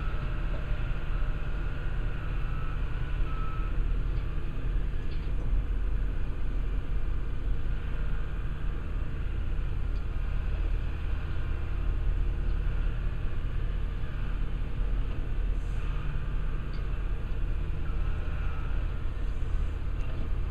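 Diesel engine of a rail-mounted tie crane running steadily, a low rumble, as the machine is positioned on the track.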